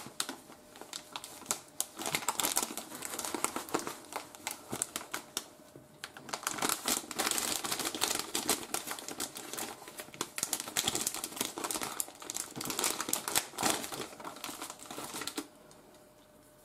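A soft plastic bag crinkling and rustling as it is handled, a dense run of irregular small crackles that stops about a second before the end.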